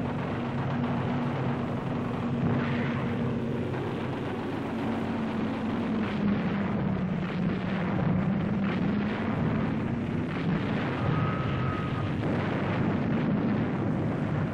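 Droning engine of a piston-engined propeller warplane, its pitch sagging slightly a little past the middle, with scattered bangs through it.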